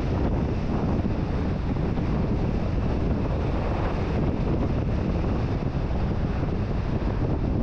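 Steady wind buffeting on the camera microphone, an even low rumble that never changes. It is typical of wind and road noise picked up by a camera mounted on a moving car.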